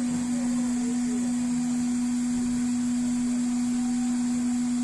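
A steady, unchanging electrical hum on one low pitch, with fainter higher tones over it.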